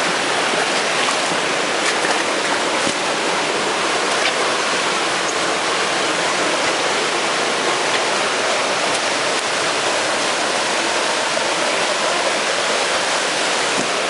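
Small waterfall cascading into a rocky pool: a steady rush of splashing water.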